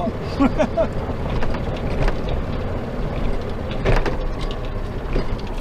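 Two cans of beer being shotgunned and chugged, with a few sharp clicks and cracks about half a second, two seconds and four seconds in, over a steady low rumble.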